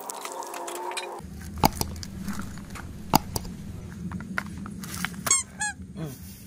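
Bubble wrap and plastic parts bags crinkling and crackling as hands unwrap them, with irregular sharp clicks, two of them louder. A steady low hum starts about a second in, and a few short chirping calls come near the end.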